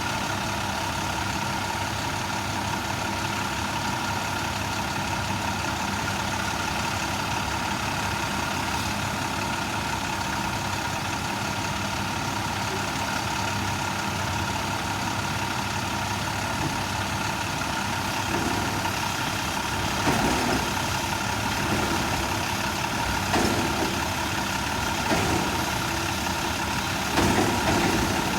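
Garbage truck engine idling steadily with a thin steady whine above the hum. About two-thirds of the way through comes a run of short, irregular louder clunks and rattles.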